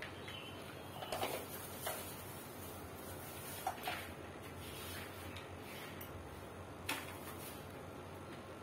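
Scattered light plastic knocks and clicks from stand-fan parts (the round base and pole) being handled and fitted during assembly, a few single knocks several seconds apart.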